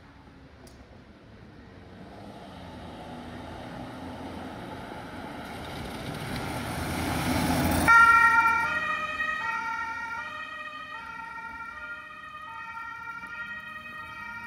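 Ambulance passing: road noise builds to a peak, then about eight seconds in its two-tone siren comes on, the pitch switching back and forth between two tones as it moves away.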